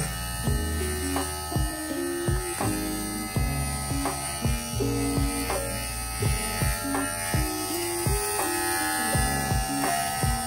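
Steady buzz of a Kemei KM-2002 electric hair clipper cutting hair, under background music with a steady beat.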